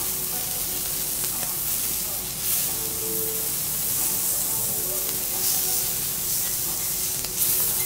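Lobster pieces sizzling on a hot teppanyaki steel griddle, a steady frying hiss, with a few brief louder moments as two metal spatulas turn and push the pieces across the plate.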